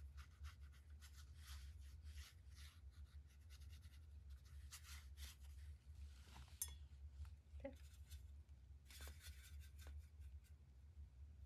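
Faint, scratchy strokes of a paintbrush on textured watercolour paper, repeated irregularly, over a steady low hum.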